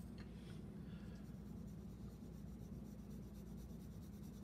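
Faint scratching of a Prismacolor colored pencil shading on paper, with a low steady hum beneath.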